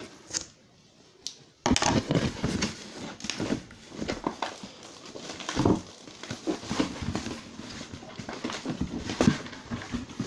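Cardboard and plastic packaging being handled and pulled at to free its contents: after a short quiet, irregular rustling, scraping and small knocks start about two seconds in and continue.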